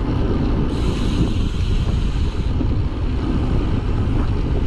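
Wind buffeting the microphone of a moving rider, a steady low rumble with a brief extra hiss from about one to two and a half seconds in.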